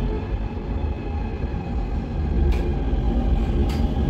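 Cologne Stadtbahn light-rail car running between stations, heard from inside the passenger compartment: a steady low rumble from the wheels and running gear, with two sharp clicks about a second apart near the end.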